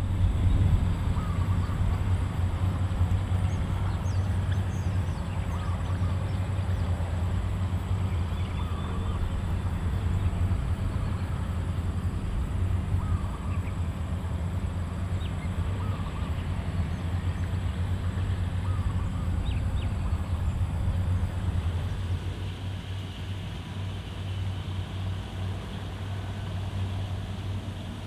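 Steady low drone of distant engine machinery, easing a little near the end, with faint short bird calls now and then over it.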